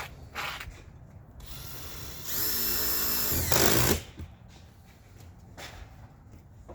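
Power drill driving a screw on the metal roof: it runs steadily for about a second and a half, about two seconds in, gets louder just before it stops suddenly.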